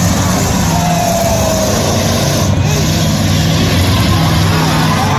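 Demolition derby vehicle engines running and revving, their pitch stepping up and down under a dense, loud wash of noise.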